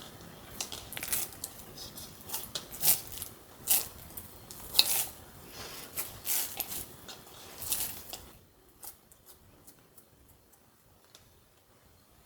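A run of crisp clicks and rustling from something being handled, which stops suddenly about eight seconds in, leaving a few faint ticks.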